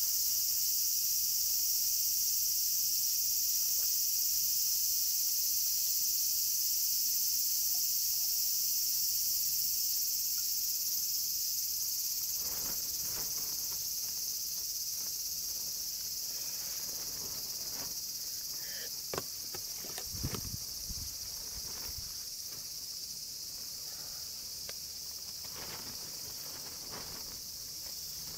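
Steady high-pitched chorus of insects, with a few soft knocks about two-thirds of the way through.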